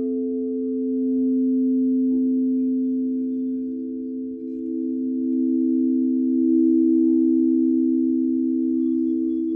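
Several chakra-tuned crystal singing bowls sounding together as mallets are worked around their rims: a few steady, overlapping low tones that swell and waver. The sound dips briefly about four seconds in and then builds again.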